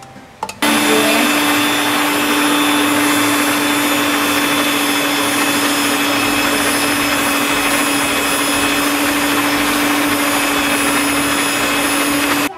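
Electric hand mixer with dough hooks kneading pizza dough. It switches on about half a second in, its motor runs at a steady pitch, and it cuts off just before the end.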